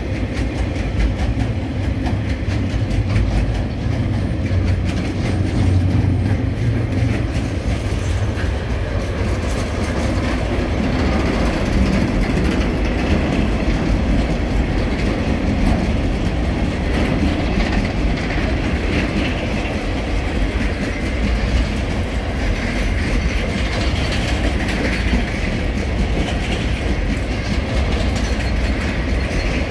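Freight train wagons (log flats, then hopper and ballast wagons) rolling past close by: a steady rumble of steel wheels on the rails with repeated clicks as the wheels pass over the track.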